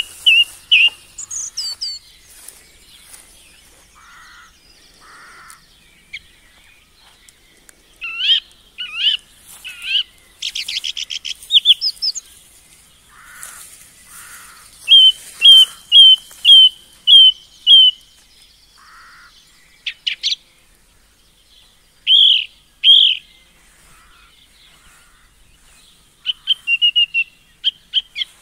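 Songbirds singing and calling: short high chirps, a quick trill, and about halfway through a run of about seven evenly spaced whistled notes, two a second.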